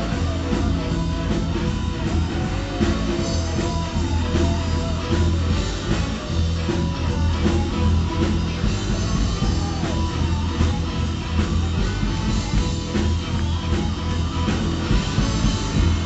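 Live blues-rock band playing a steady groove on electric guitars and drum kit, with saxophone over it.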